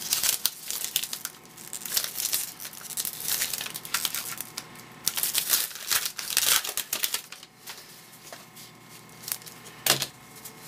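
A baseball card pack wrapper being torn open and crinkled by hand, in irregular bursts for about the first seven seconds. After that come quieter rustles of the cards being handled, and one sharp click near the end.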